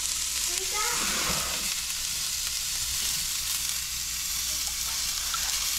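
Beurre blanc sauce bubbling in a stainless saucepan with a steady sizzling hiss as butter is stirred into it with a spoon.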